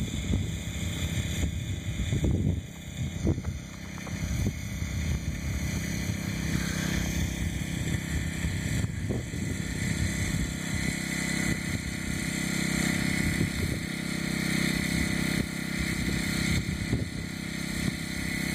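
An engine running steadily at idle, a low hum that holds the same pitch throughout, with no revving.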